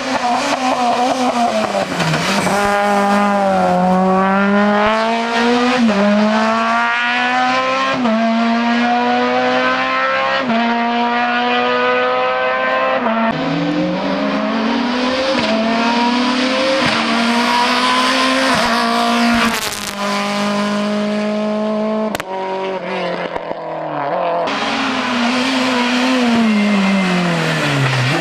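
Racing car engine accelerating hard through the gears, its pitch climbing and dropping back at each upshift every two to three seconds. A sudden break comes about three quarters of the way in, then an engine note falls in pitch as it slows near the end.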